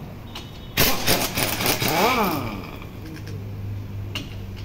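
Impact wrench working on the rear wheel hub nut: a burst of rapid hammering about a second in, then the tool's motor spinning with a whine that rises and falls.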